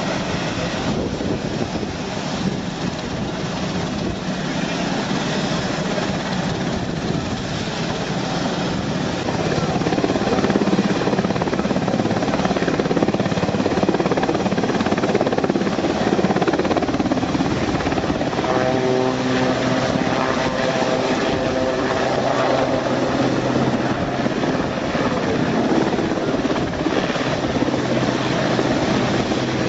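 Westland Sea King search-and-rescue helicopter running loud as it lifts off and flies low, with rotor and turbine noise. The sound grows louder about ten seconds in, and steady whining tones come in about two-thirds of the way through.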